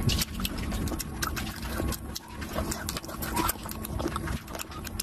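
Close-miked wet chewing and lip-smacking of a person eating oily curry with rice by hand, with many short sticky mouth clicks.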